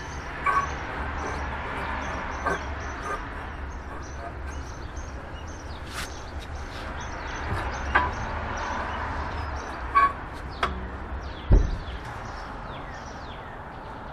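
Faint bird chirps over a low steady hum, with scattered clicks and knocks; the loudest is a low thud about eleven and a half seconds in.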